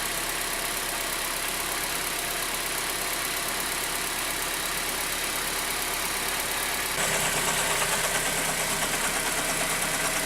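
Car engine idling evenly with no knock, its torn air-conditioning compressor belt removed, which the owner takes for the cause of the knocking. About seven seconds in the sound changes abruptly and gets a little louder.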